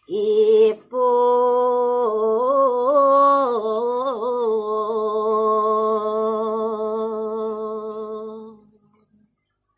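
A woman's solo voice singing Balinese pupuh Ginada (tembang) without accompaniment. A short syllable is followed by one long held note with wavering ornaments in its middle, dying away near the end.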